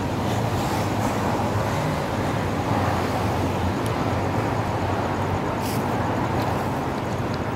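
Steady rumble of road traffic mixed with the low, even hum of a diesel locomotive idling before it departs.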